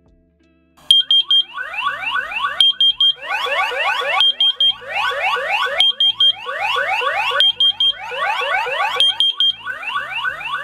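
X-Sense water leak detection system's alarm siren going off because a sensor has detected water: fast repeated rising whoops, about five a second, alternating with short runs of high beeps, stopping abruptly near the end.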